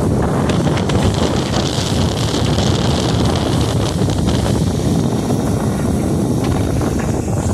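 Strong wind buffeting the microphone on a sailboat's deck, a loud steady rush with choppy water splashing along the hull.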